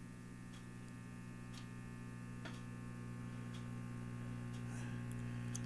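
Silvertone Model 6050 tube radio's speaker putting out a steady mains hum with no program audio, growing slowly louder, while the set runs at reduced voltage on a dim-bulb tester. The hum is the sign of likely failing filter capacitors.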